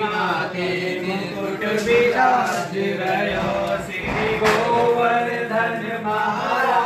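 A group of men chanting a devotional song together, in unison.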